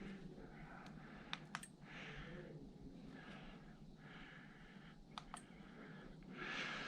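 Faint clicks from the action camera being handled and its buttons pressed: two quick pairs, about a second and a half in and again about five seconds in, over a low hiss that grows louder near the end.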